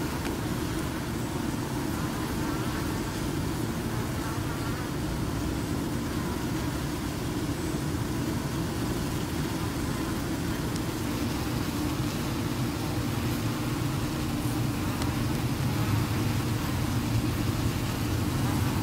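A honey bee buzzing its wings over a steady low outdoor rumble.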